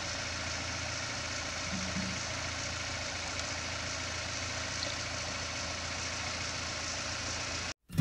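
An engine idling steadily, an even low hum, cutting off suddenly near the end.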